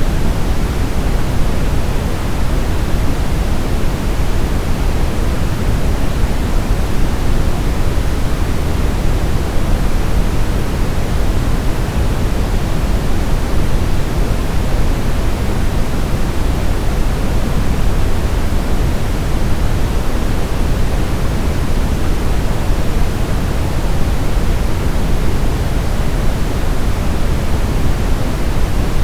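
Steady generated noise of the baby sleep-aid kind: an even, unchanging hiss with most of its weight in the low end, deeper than pure white noise.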